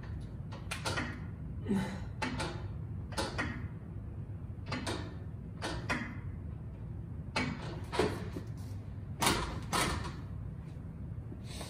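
Irregular metallic knocks and clicks from a plate-loaded lat pulldown machine as its lever arms and hanging D-handles are worked and released, roughly one a second, over a steady low hum.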